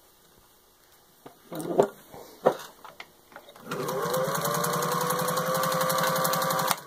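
A couple of sharp knocks, then a 1938 Singer 201-2 sewing machine, driven by its 1950s replacement motor, starts up about three and a half seconds in. It rises in pitch as it comes up to speed, then stitches through three layers of soft leather at a steady fast rhythm for about three seconds and stops abruptly.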